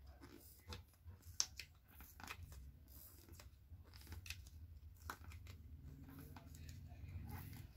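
Faint, irregular scratching and crackling of old polarizer film being scraped and peeled off an LCD panel's glass with a knife blade, with one sharper click about a second and a half in, over a low steady hum.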